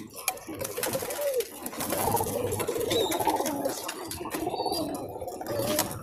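Racing pigeons cooing, several low wavering coos overlapping, loudest in the middle, over scattered light clicks and knocks.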